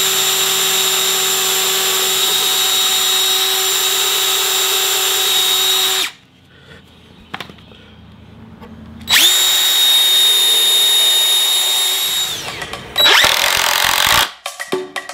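DeWalt cordless drill whining steadily as it pre-drills a screw hole in the wooden frame, stopping about six seconds in. After a pause it runs again for about three seconds, winds down with falling pitch, and gives a short burst. Near the end a DeWalt impact driver starts, hammering rapidly as it drives a screw.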